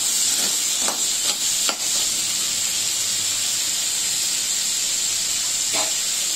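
Crab pieces frying in hot oil in a steel kadai: a steady sizzle, with a few brief scrapes and knocks of a spatula against the pan in the first two seconds.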